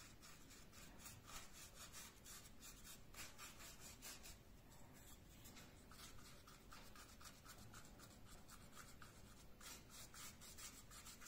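Faint bristles of a small paintbrush rubbing on an imitation-wood foam ceiling beam in quick repeated strokes, spreading wood stain over an acrylic-filled joint.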